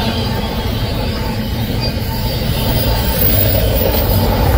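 Double-stack container well cars of a freight train rolling past, their steel wheels on the rails making a loud, steady rumble that grows a little louder in the second half.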